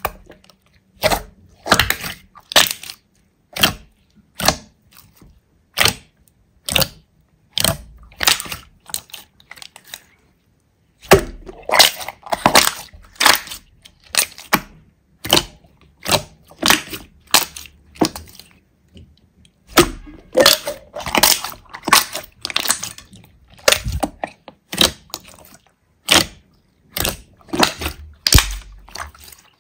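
Slime being pressed and squeezed by hand, giving a string of sharp crackling pops about one or two a second, with two brief pauses.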